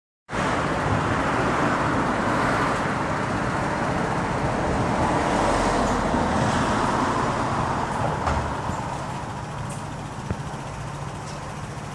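Street traffic noise: a steady rush of passing road vehicles that cuts in abruptly and eases somewhat over the last few seconds.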